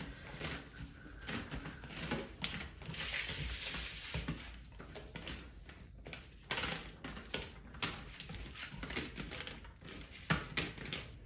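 Hands mixing rice and fish curry on steel platters: a scatter of small irregular clicks and scrapes of fingers and food against the metal.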